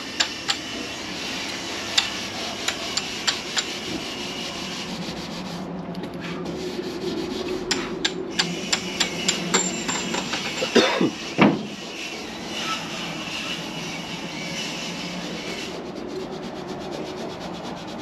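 Scotch-Brite pad rubbing back and forth over a welded metal panel: steady scratchy strokes with small ticks, with two brief louder sounds about eleven seconds in. This is the hand-brushing finish that takes off fingerprints and weld discoloration.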